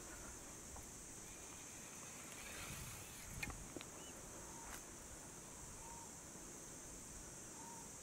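Quiet bush ambience: a steady high insect drone, with a faint short bird note repeating every couple of seconds and a few soft clicks and rustles a little past the middle.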